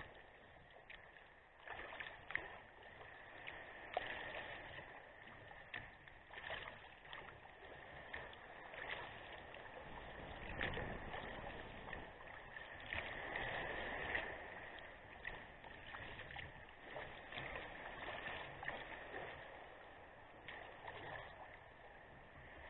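Sea kayak being paddled: paddle blades splashing into the water at an uneven rate of about one stroke every second or two, over a steady rush of water along the hull.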